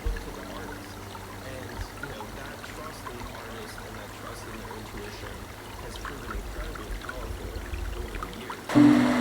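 Creek water running and trickling under partial ice, an even rush with small scattered splashes, plus some low rumble.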